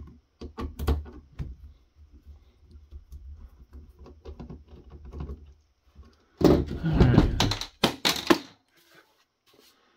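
Hand screwdriver working the Torx screws on the plastic housing of a Cisco access point: small irregular clicks and scrapes. About six seconds in, louder knocking and clattering as the plastic unit is picked up and handled, ending in a few sharp knocks.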